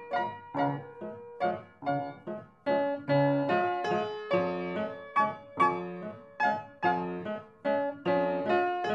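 Background piano music: struck notes and chords at a steady pace, about two a second, each ringing out and fading.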